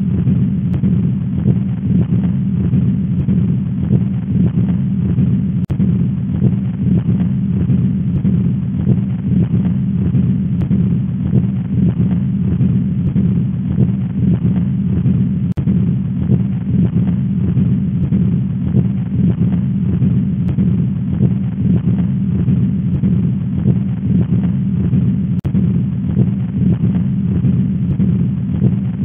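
Heart sounds with a continuous, machine-like murmur that runs through both systole and diastole, swelling with each beat: the classic murmur of a patent ductus arteriosus.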